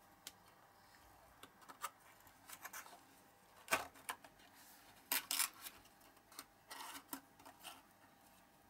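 A small cardboard box being handled: paper flaps folded with light rustles, clicks and taps as a die-cast toy car is slid into it. The sharpest tap comes about a third of the way in.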